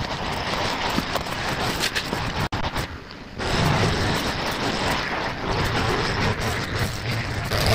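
Petrol brush cutter running steadily as it cuts dry grass. The sound drops away suddenly about two and a half seconds in, then comes back under a second later.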